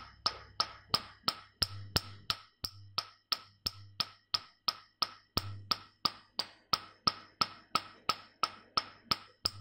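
Nd:YAG laser handpiece firing pulses onto facial skin: a sharp snapping click about three times a second in a steady rhythm, with a faint low hum coming and going underneath.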